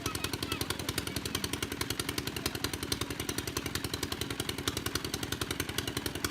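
Small engine of a water pump running steadily, with rapid, even thumps, draining the pond.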